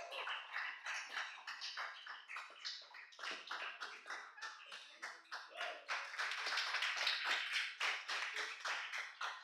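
Audience applauding, many quick hand claps overlapping, swelling louder about six seconds in.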